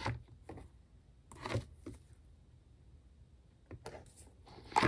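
Clear plastic binder sleeves full of photocards rustling and crinkling as the pages are turned, in a few short bursts, the loudest near the end.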